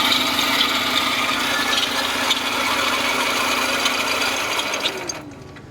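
Running 2022 Mitsubishi L300 engine with a loud grinding like metal from a worn bearing on the belt drive, which the mechanic first takes for the alternator bearing and later traces to the belt adjuster (tensioner) pulley bearing. The noise cuts off suddenly near the end.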